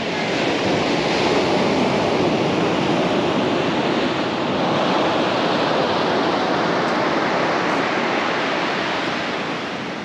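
Ocean surf breaking on a sandy beach: a steady rush of waves that eases slightly near the end.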